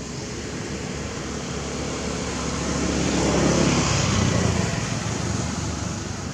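A motor vehicle passing by: engine and road noise swell to their loudest about three and a half seconds in, then fade again, over a steady background hiss.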